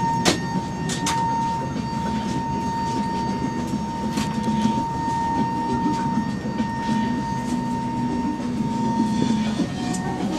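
Steady cabin noise inside a parked Airbus A321 during boarding: a low hum with a constant high-pitched whine over it. A few sharp clicks come in the first second or so.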